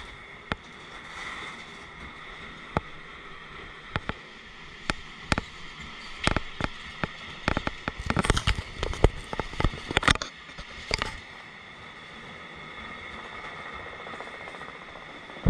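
Loaded freight wagons rolling past over steady rushing wheel noise, with sharp irregular clacks from the wheels on the track. The clacks come thickest in the middle, then die away.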